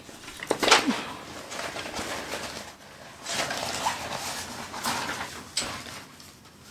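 Rustling and crackling of a diamond painting canvas's plastic-coated protective sheet being handled and smoothed by hand. It comes in three bursts with a few sharp crinkles.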